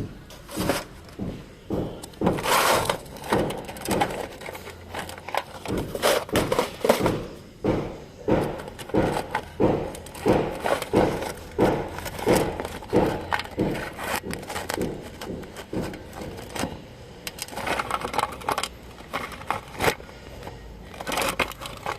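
A rapid series of irregular short strokes, roughly two a second, from hand-tool work on a car body. A low steady hum comes in a few seconds in.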